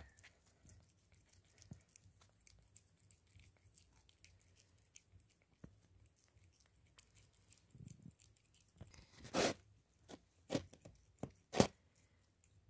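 A tabby cat chewing and tearing at a slice of pizza close to the microphone: a scatter of faint, wet clicks, then a few louder tearing bites near the end.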